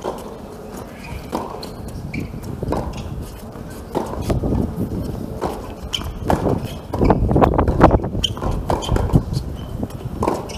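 Tennis rally on a hard court: rackets strike the ball and the ball bounces, a sharp pop every second or so, with players' footsteps.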